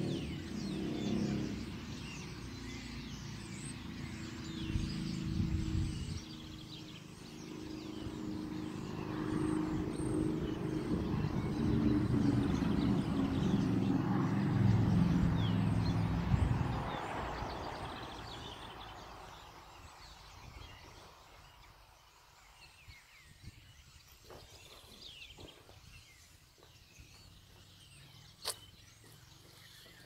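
A large flock of birds chattering and chirping all together in a tree. For the first half a vehicle's low engine rumble runs under them, growing louder and then fading away; a single sharp click sounds near the end.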